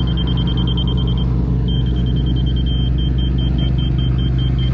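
Diesel engine of heavy earthmoving equipment running steadily, with a high-pitched electronic warning beep pulsing about five times a second that stops briefly a little over a second in and then resumes.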